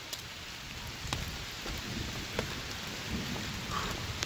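Steady rain falling, with scattered sharp ticks of single drops close by and a low rumble underneath.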